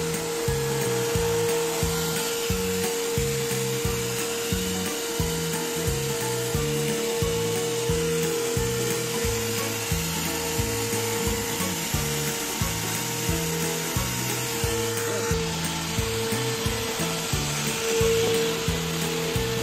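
Canister vacuum cleaner running steadily as it sucks up German cockroaches from floor edges and under kitchen equipment, the vacuuming stage of a cockroach treatment. Background music with a steady beat plays over it.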